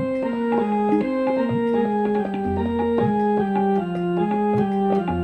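Electronic keyboard playing an instrumental interlude in an organ-like voice: a melody of held notes stepping one after another over low sustained bass notes.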